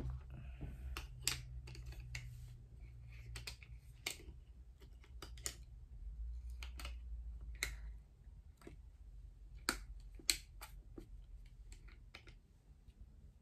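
Irregular sharp clicks and taps, well over a dozen and spaced unevenly, from hands handling a new camera and its accessories, over a low steady hum.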